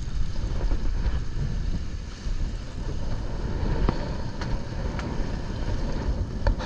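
Wind buffeting the microphone and water washing around a small boat at sea, an even rushing noise heaviest in the lows, with a few faint ticks scattered through it.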